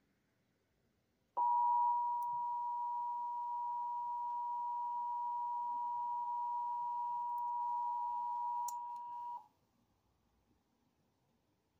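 Emergency Alert System two-tone attention signal: a steady pair of pure tones just under 1 kHz that starts abruptly about a second and a half in, holds for about eight seconds and cuts off. It announces an incoming alert, here a National Weather Service severe thunderstorm warning.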